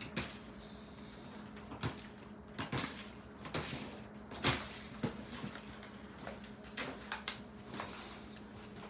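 Dried pretzels being picked off a food dehydrator's mesh tray and dropped into a kraft paper pouch: irregular light clicks and paper rustles, one at a time, over a steady low hum.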